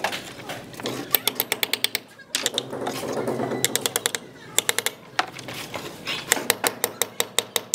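Claw hammer driving nails into wooden boards: several quick runs of light, rapid blows, about nine a second, with short pauses between the runs.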